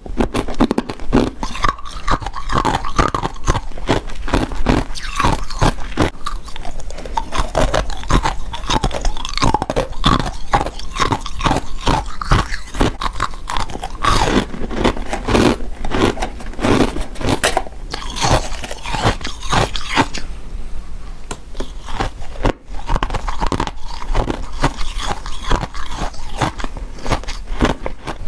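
Freezer frost being bitten and chewed: a dense run of rapid crunches with no pause.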